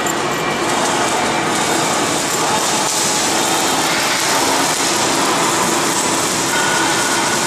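Steady mechanical running noise of industrial machinery, an even rushing sound with faint steady hums through it.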